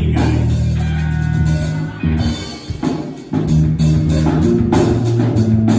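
Live rock band: electric guitar and drum kit playing. The sound thins out for about a second around two seconds in, then the full band comes back in.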